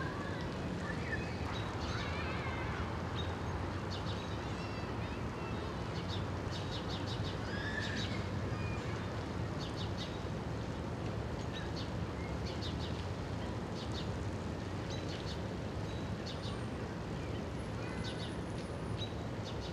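Small birds chirping: many short, high chirps in quick clusters, with a few lower chirps near the start, over a steady low background rumble.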